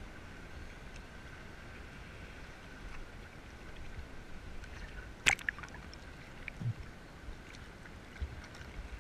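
Sea water sloshing and lapping at the surface around floating divers, with one sharp knock a little past the middle and a few fainter clicks.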